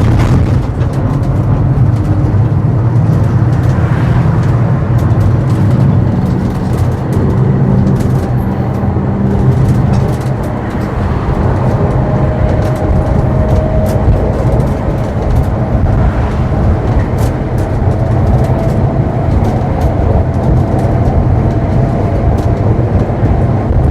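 Vintage tram running along its tracks: a steady low rumble of wheels on rail, with scattered clicks and rattles and a faint steady whine about halfway through.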